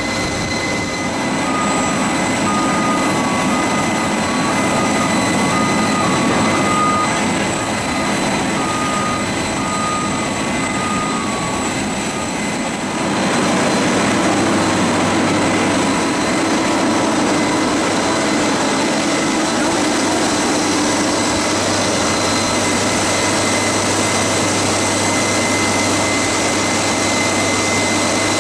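Jet aircraft turbine noise on the ramp: a steady roar with high whining tones, growing louder about halfway through. A rapid string of short beeps alternating between two pitches sounds over it for the first ten seconds or so.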